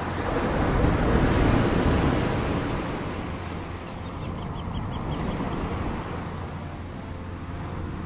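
Ocean surf washing in among shoreline rocks. A wave surges and breaks, loudest about a second in, then drains away, and a smaller swell follows near the middle.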